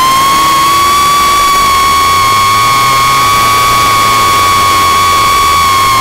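RC flying wing's motor and propeller, heard from its onboard camera as a loud steady high whine that rises slightly in pitch about a second in and then holds, over wind rush on the microphone.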